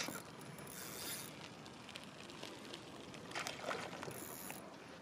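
Spinning fishing reel working while a hooked barbel is played: mechanical reel noise with two short high-pitched bursts, about a second in and again near the end, after a sharp click at the start.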